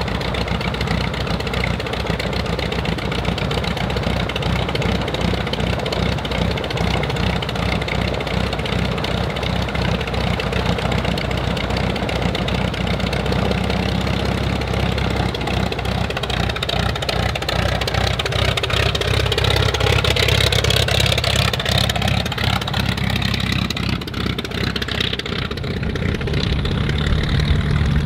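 Albatros D.Va's Mercedes 200 hp straight-six aero engine running steadily on the ground with its propeller turning, growing somewhat louder about twenty seconds in.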